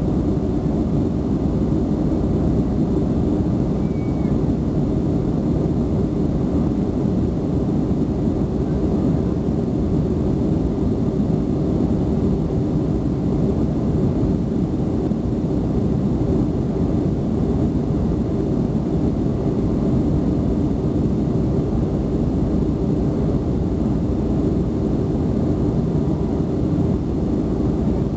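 Steady cabin roar of a Boeing 737 in flight, heard from a window seat: the jet engines and rushing airflow make an even, low-pitched noise.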